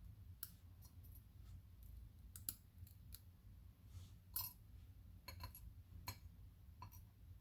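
Light, irregular clicks and taps of small metal lock parts, pins and tools, being handled on a bench, over a faint low hum.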